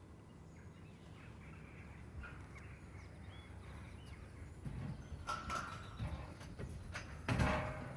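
Metal rattling and knocking from a cattle squeeze chute as a calf moves through it, twice: once about five seconds in and again, louder, near the end. Faint bird chirps are heard early on under a quiet background.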